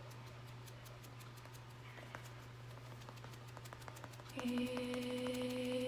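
A woman humming one long steady note, starting about four seconds in. Before it there is only a low steady background hum and a few faint soft ticks.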